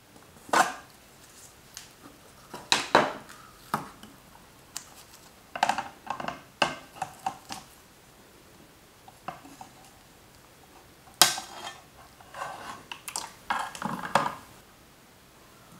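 A glass plate for a wet collodion ambrotype and its plate holder being handled: scattered light knocks, clicks and short scrapes of glass and holder in small clusters, the loudest a sharp click about eleven seconds in.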